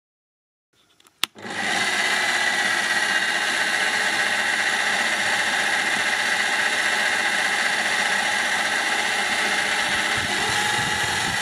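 Parkside PTBMOD 710 B2 bench pillar drill switched on with a click about a second in, its 710 W motor then running steadily with no load at the lowest speed setting, about 490 rpm. Near the end the electronic speed dial is turned and the speed begins to rise.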